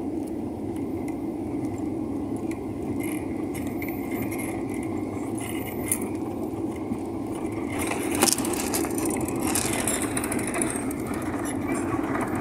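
Airliner engine and airflow noise inside the cabin, a steady rumble. A thump comes about eight seconds in, after which the noise grows louder and harsher with hiss and rattling as the plane moves along the runway.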